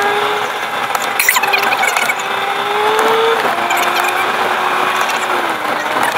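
Car engine heard from inside the cabin, its note rising slowly as the car accelerates and dropping about three and a half seconds in, then easing off near the end. It sits over a steady hiss of tyres on a wet road, with a brief clatter about a second in.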